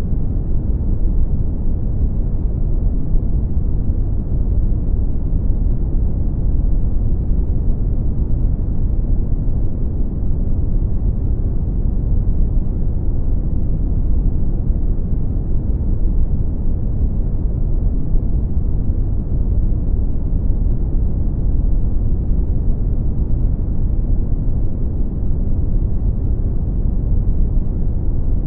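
Brown noise: a steady, deep rumbling hiss, strongest in the bass and fading out toward the treble, with no changes.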